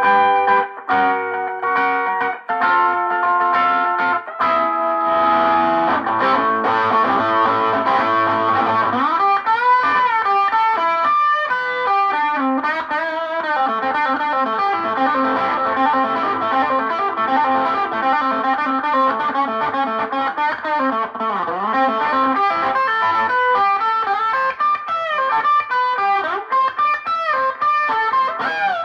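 Electric guitar through a cranked, overdriven amp, very loud in a small room. It plays a few held chords, then fast lead lines with string bends and wide vibrato.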